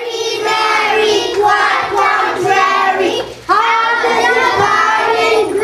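A child singing a melody in a high voice, with a short break for breath about three and a half seconds in.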